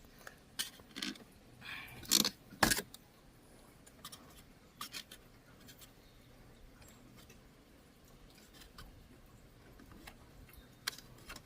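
Scattered light clicks and taps of hands handling small objects, with two sharper clicks about two seconds in and another near the end, over a faint steady background.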